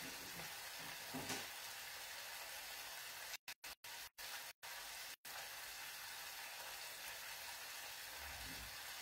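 Food sizzling gently in a pan on a gas stove, a faint, steady frying hiss. The sound cuts out briefly several times in the middle.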